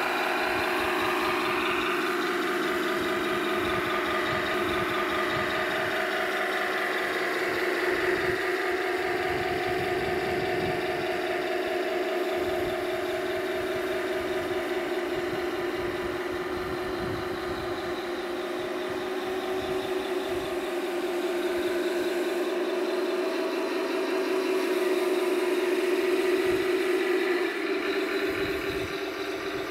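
Tamiya 1/16 full-option Tiger I's onboard sound unit playing a simulated tank engine through the model's small speaker, a steady running note whose pitch steps up and down a few times as the throttle changes, loudest late on.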